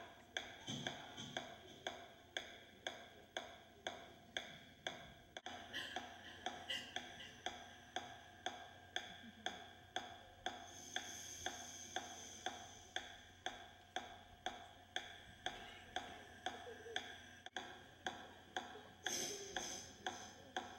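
Steady, clock-like ticking, about two ticks a second, over faint sustained tones: a ticking accompaniment to the dance.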